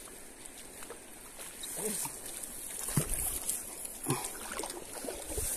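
Steady outdoor background of high insect buzz and trickling water, with a sharp knock about three seconds in and two brief, faint vocal sounds.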